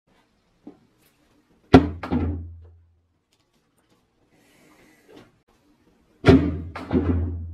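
Heavy rusty cast-iron manual bench press, 29 kg, set down hard on a wooden workbench: two heavy thuds in quick succession with a low boom that dies away. Twice more, about four and a half seconds later.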